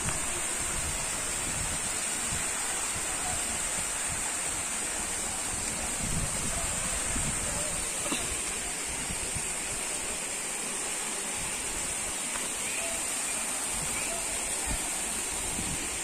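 Stream water rushing steadily over rocks at a small waterfall cascade, with a steady high hiss above it.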